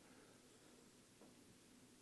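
Near silence: room tone during a pause in speech, with a faint steady hum.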